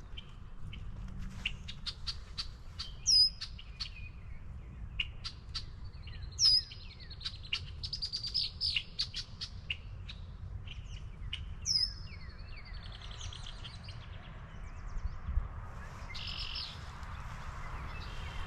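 Several songbirds singing and chirping. One loud high song phrase repeats three times, each a sharp sweeping note ending in a buzzy trill, among many quick chips.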